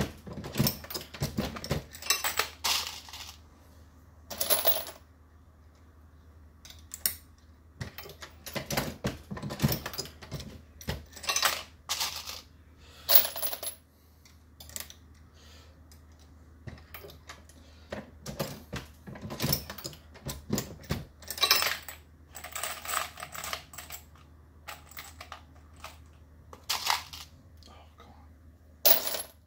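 Dillon RL550B progressive reloading press worked by hand to load .223 rounds: brass cases and bullets clinking and the press clicking and clacking as it is cycled. The sharp metallic clicks come at irregular intervals, many in quick clusters, a few with a short ring.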